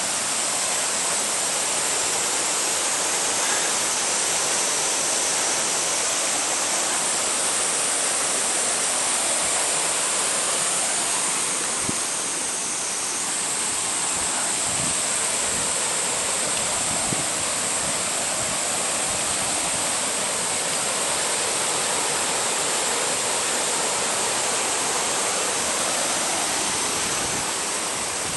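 Mountain valley stream water rushing, a steady, unbroken flow.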